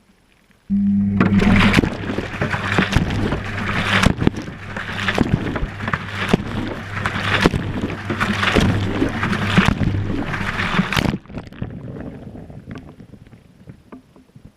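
Washing machine drum turning during a wash, heard from inside the drum: the motor starts with a steady low hum about a second in, and water and laundry slosh and tumble with a surge about once a second. It stops suddenly near the end, leaving water dripping and trickling.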